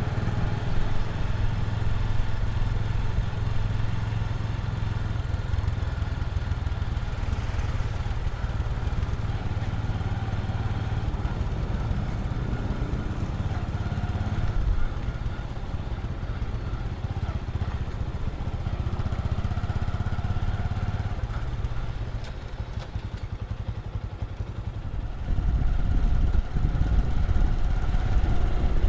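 Steady running noise of a moving road vehicle: engine hum over a low road-and-wind rumble, getting louder near the end.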